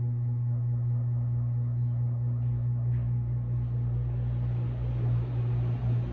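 A steady low hum with a few faint overtones, joined by a growing hiss-like noise from about four seconds in.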